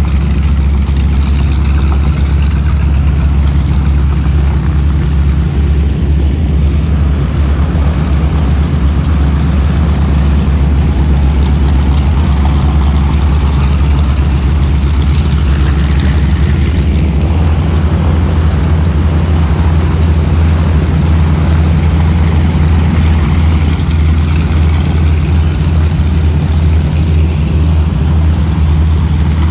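Radial piston engines of propeller warbird trainers taxiing past one after another at low power, a loud steady engine drone with propeller chop. The pitch steps slightly lower about halfway through as a different aircraft comes by.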